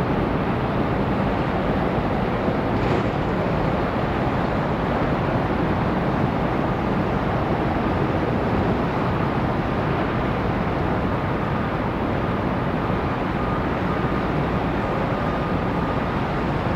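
Steady low rumble of harbour background noise from ship and tugboat engines and open water, with a faint thin steady whine joining in about halfway through.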